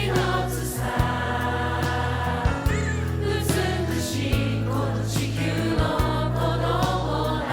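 Background music: a song with choral singing over a steady beat.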